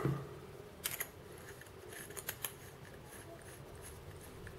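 Small clicks and light taps of a rebuildable tank atomizer's metal and glass parts being handled and fitted together. There is a sharp click about a second in and a few more just after two seconds.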